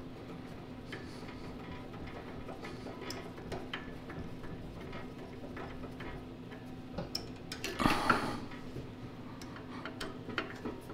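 Small metal clicks and taps of a screwdriver working the mounting screws of a new carburetor on a Tecumseh 10 HP snowblower engine, over a steady low hum. A louder scraping rustle comes about eight seconds in.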